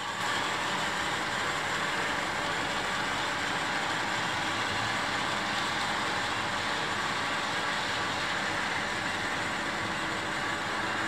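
Model trains running on the layout: a steady, even rolling and running noise with no distinct clicks or rhythm.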